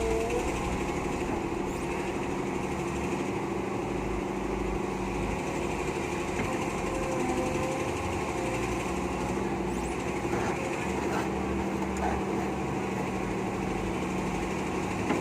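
Hitachi UH07 excavator's diesel engine running steadily under working load, its pitch dipping and rising slightly now and then. The machine is struggling to dig, which the mechanic puts down to the engine or the hydraulic pump and the unit's age.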